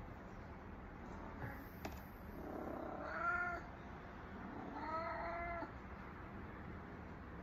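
Domestic cat in heat yowling: two drawn-out, rising-and-falling calls about three and five seconds in, the insistent calling of a queen in oestrus.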